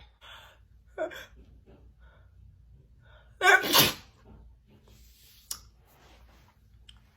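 A woman sneezing: a short catch of breath about a second in, then one loud sneeze about three and a half seconds in, followed by quieter breathing and a small click.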